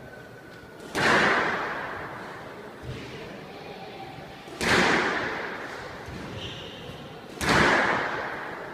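Three hard cracks of a squash ball being hit, each ringing on in the echo of the walled court as it dies away.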